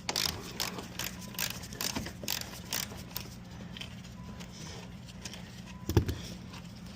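Ratchet wrench clicking in even strokes, about two or three a second, as a door hinge bolt is backed out; the clicking stops about three seconds in. A single loud thump near the end.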